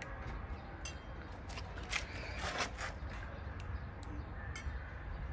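Headlight-restoration steamer in use, its vapour nozzle passed over a plastic headlight lens. A steady low rumble with scattered faint clicks and crackles.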